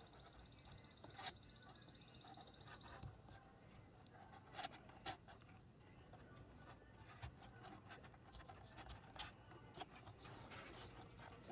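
Faint, scattered scratches and clicks of a hand carving knife cutting into wood, over a quiet background hiss.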